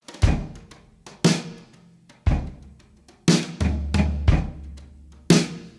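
A drum kit starting a song at a slow beat, about one hit a second, with bass drum and snare taking turns. A low bass note comes in about halfway through.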